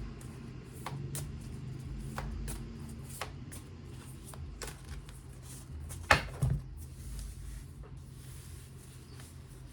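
Tarot cards being shuffled and handled by hand: a run of soft, irregular clicks and rustles, with one sharper tap about six seconds in.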